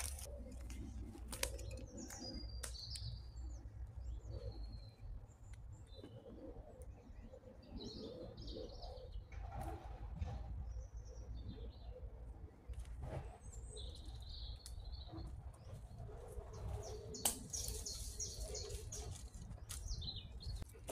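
Small birds chirping now and then, with a few faint sharp clicks and knocks.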